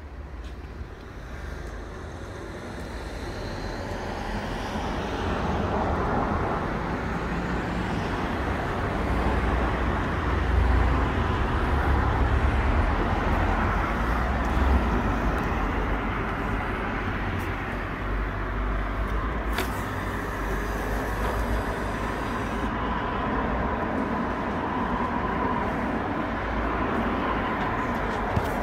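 Low rumble of motor-vehicle and traffic noise that swells over the first ten seconds and then holds steady, with a faint steady whine in the last several seconds.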